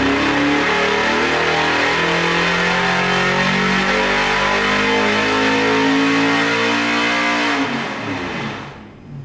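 Small-block Chevy 383 stroker V8 with a solid roller cam making a full-throttle dyno pull: its revs climb to near 5,800 rpm and hold there. About eight seconds in, the throttle is closed and the engine falls away sharply toward idle.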